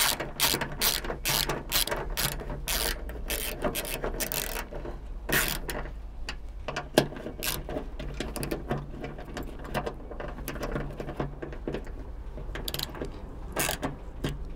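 Ratchet with a 10 mm socket clicking as it tightens the trunk-lid bolts: a fast run of clicks for the first four seconds or so, then scattered clicks, with another short run near the end.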